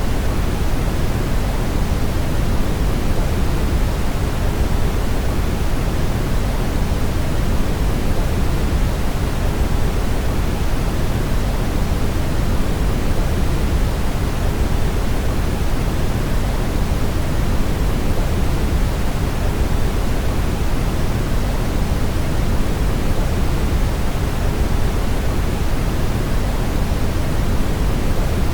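Brown noise: a steady, even rumbling hiss weighted toward the low end, with no change throughout.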